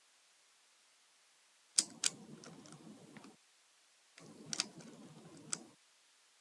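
Plastic Rubik's cube being turned by feet: layers clicking and clattering in two bursts of about a second and a half, each opening with a few sharp clicks.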